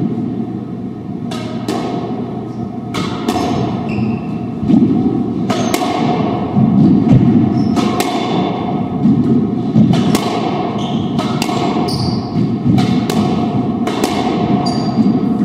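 Squash doubles rally: sharp smacks of racquets striking the ball and the ball hitting the court walls, roughly one a second, echoing in the enclosed court.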